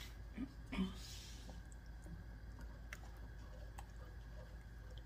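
Wooden spoon stirring thick tomato meat sauce in a stainless steel pot: faint wet squishing with a few light clicks of the spoon against the pot, most of them in the first second.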